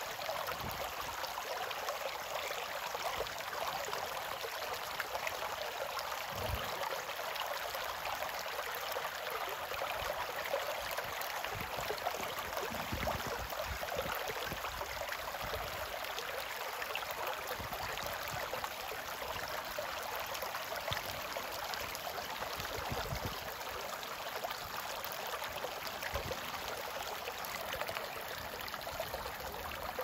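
Shallow stream babbling steadily over mossy stones and through small riffles.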